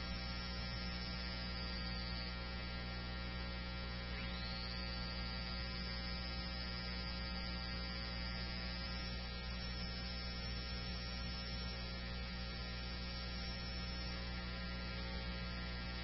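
Steady electrical hum with a faint hiss on a police scanner's audio feed between radio transmissions, with no voice traffic. The hum holds an even level throughout.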